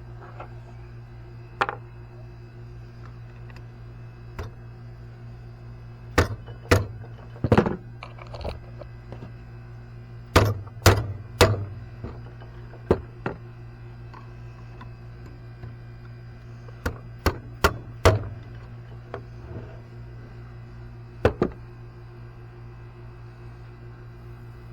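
Tools knocking and tapping on metal parts of an ATV during repair work: about fourteen sharp, irregular strikes, several in quick clusters, with a steady low hum underneath.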